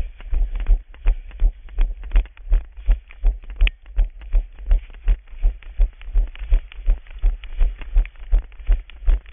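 Running footsteps on wet asphalt at about three strides a second, each landing a dull thud with a sharp scuff on top, picked up by a body-worn camera that jolts with every step.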